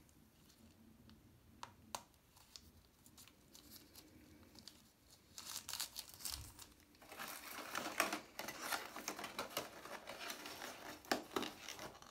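Plastic tampon wrappers and packaging crinkling in the hands: a few small clicks at first, then steady crinkling from about halfway.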